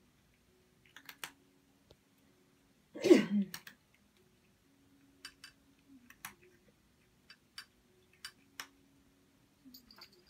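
Scattered light clicks of a tabby cat's claws and collar tag on a tiled floor as it moves about, with one short, louder vocal sound falling in pitch about three seconds in.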